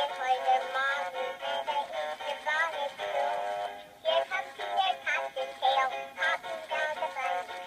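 Animated plush bunny toy singing a song through its small built-in speaker: a thin electronic singing voice and melody with almost no bass.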